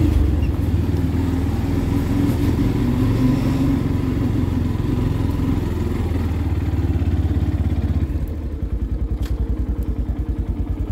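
Motorcycle engine running as the bike rolls slowly. About eight seconds in it settles into an even idle beat.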